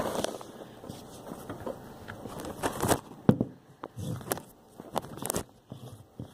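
Handling noise right at the microphone: irregular clicks, taps and rubbing as hands work a pencil close to it, the loudest click about three seconds in.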